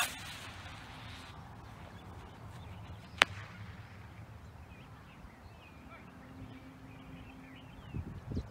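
Estes Swift model rocket lifting off on a 1/4A3-3T motor: a sharp pop and about a second of hiss as the motor burns, then about three seconds later a single sharp crack from the ejection charge.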